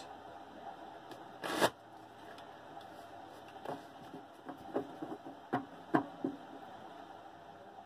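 A tarot deck being shuffled by hand: soft, scattered card flicks and taps, with one brief louder rush of noise about a second and a half in.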